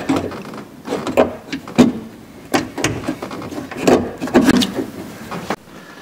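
Door latch assembly with its power door lock actuator clunking and scraping against the steel door shell as it is worked out through the door opening: irregular sharp knocks and rattles with rubbing between them, ending shortly before the end.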